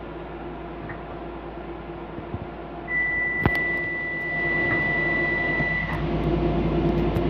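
Docklands Light Railway train heard from inside the car as it pulls into a station and stops: a steady running hum, then about three seconds in a steady high-pitched squeal starts, most likely the brakes, with a sharp click, and it cuts off about six seconds in as the train comes to a halt.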